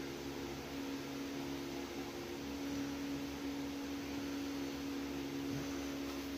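Steady hum of a small electric motor, holding one fixed tone without change.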